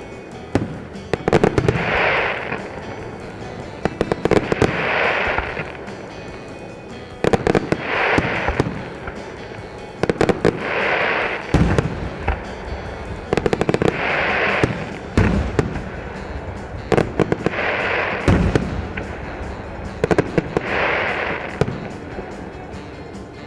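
Fireworks shells bursting overhead, with a cluster of bangs about every three seconds, each followed by about a second of crackling.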